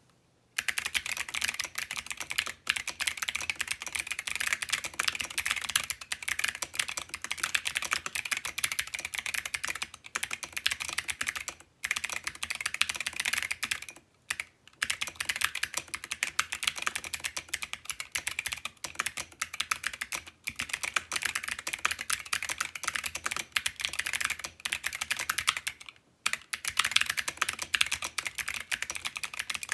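Fast, continuous typing on an AV3 mechanical keyboard with stock Zeal Clickiez switches, an FR4 plate and XMI keycaps: a dense run of sharp key clicks that starts about half a second in and breaks off in a few short pauses.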